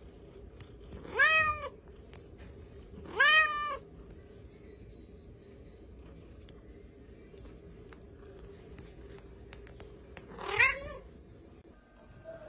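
A tabby cat meowing three times, each short meow rising and then falling in pitch: about a second in, about three seconds in, and again near the end.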